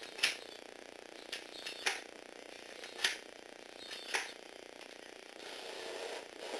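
The small electric drive motor and plastic gearing of a Lego Technic RC car give five sharp clicks about a second apart, some with a short chirp. About five seconds in, a steady whir starts as the car drives off.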